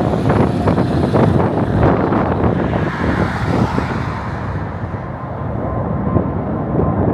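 Road noise from a fuel tanker truck driving away, loudest in the first few seconds and easing by about halfway. The rumble of a jet airliner climbing out after takeoff then builds, with a faint steady whine near the end.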